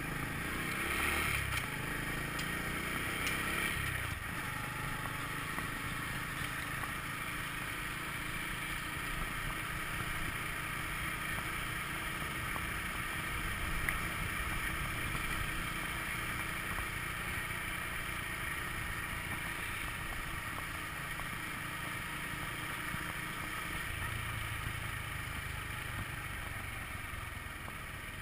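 Honda motor scooter's small single-cylinder engine running steadily on the move, with wind and road noise. It picks up speed in the first few seconds.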